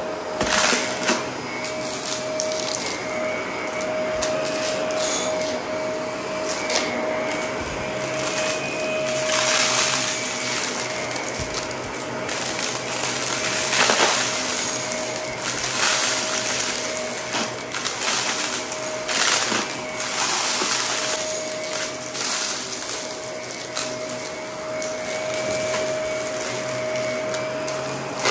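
Shark Navigator upright vacuum running with a steady motor whine as its brushroll crunches over scattered debris on carpet, with irregular bursts of crackling and rattling as bits are chewed up and sucked in.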